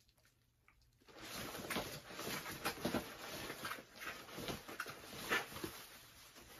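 Plastic bubble wrap being pulled and handled: a dense crinkling rustle with scattered crackles, starting about a second in.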